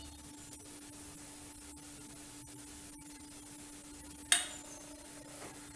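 Low steady hum with one short metallic clink of a steel kitchen utensil about four seconds in, ringing briefly.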